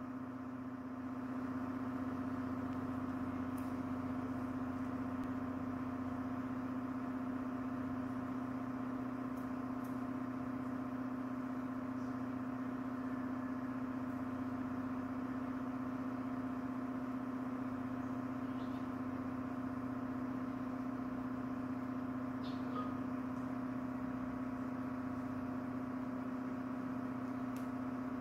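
Steady machine hum, a constant low drone that does not change, with a few faint clicks here and there.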